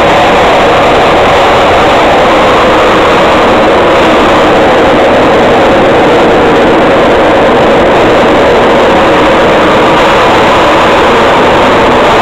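Skateboard wheels rolling fast on the concrete ramps of a parking garage: a loud, steady roar that does not let up.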